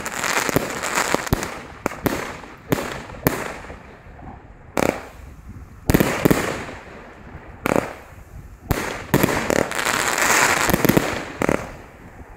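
Superior Fireworks Elite compound battery (100 shots from 30 mm tubes) firing: sharp shell bursts at irregular intervals over a steady crackle, thinning out briefly about four seconds in and thickening again near the end.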